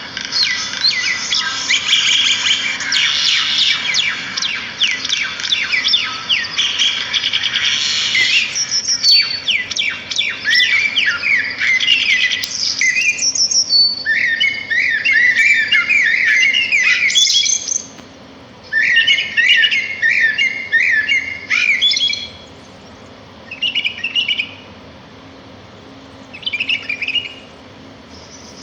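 Small songbirds chirping and twittering: a dense chorus of rapid chirps for the first eight seconds or so, then varied warbling calls, breaking near the end into three short bursts with pauses between.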